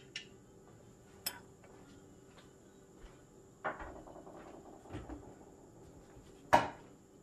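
A whisk spatula clinking and scraping against a saucepan of heating milk. It gives a few light clicks, a short scrape a little past halfway, and one sharp clack near the end, which is the loudest sound.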